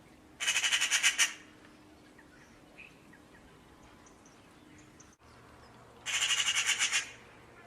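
A bird's rapid rattling call of about a second, given twice, several seconds apart.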